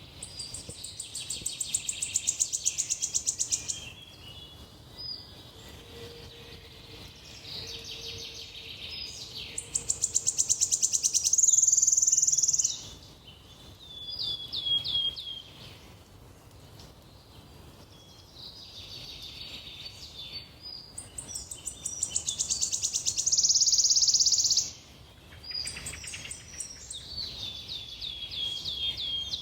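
A songbird singing three long, very fast trills that build in loudness and then stop short. Between the trills come short runs of quick down-slurred notes, over faint outdoor background noise.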